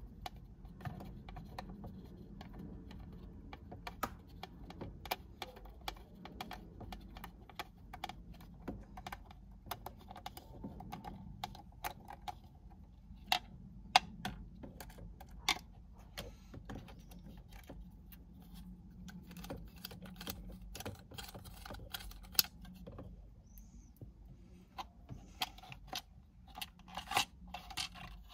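Small screwdriver turning out tiny Torx screws and handling the plastic steering-column trim around the indicator stalk: irregular light clicks and ticks of metal on plastic, with a few sharper clicks around the middle.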